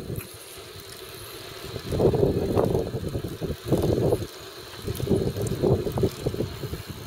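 Riding noise picked up by a bicycle-mounted camera: wind and tyre rumble, quiet for the first couple of seconds, then coming in uneven surges.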